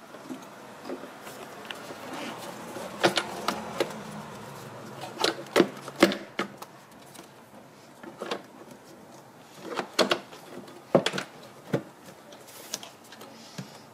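Scattered plastic clicks and knocks at irregular intervals as a car's rubber air intake duct and plastic air cleaner box cover are handled and pressed back into place.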